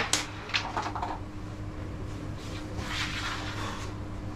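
Carrom break shot: the striker strikes the centre cluster of carrom men with a sharp crack right at the start. A few smaller clacks follow within the first second as the coins knock into each other and the board's rails.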